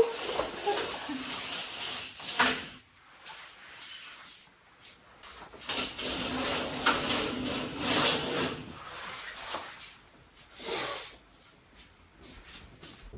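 Irregular handling noises: rustles and soft knocks coming and going, with short quiet stretches between them.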